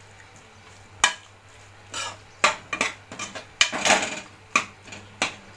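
A metal spoon stirring prawns in an aluminium pot, scraping and clinking against the metal sides at an irregular pace, about one or two strikes a second.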